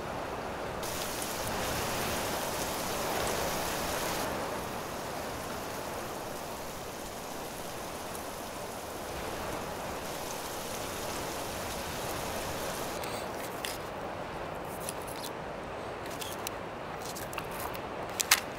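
Steady rushing wind noise. From about two-thirds of the way through, a few sharp knife clicks as green onions are cut on a flat rock.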